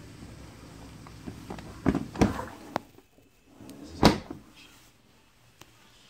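Bosch dishwasher door opened mid-cycle with a couple of sharp clunks and a click from the latch, the steady wash noise inside cutting out, then the door shut with a single loud clunk about four seconds in.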